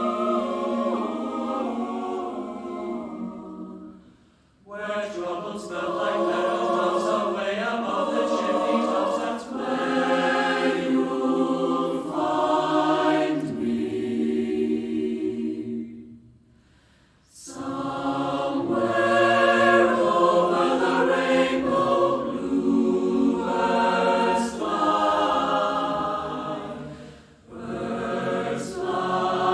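Background music of a choir singing, with several voices in harmony, breaking off briefly twice between phrases.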